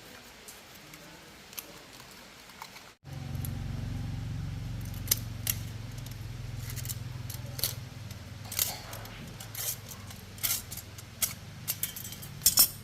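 Scattered sharp metallic clicks and clinks of tools and small parts being handled. After a cut about three seconds in, a low steady hum comes in and weakens after about eight seconds.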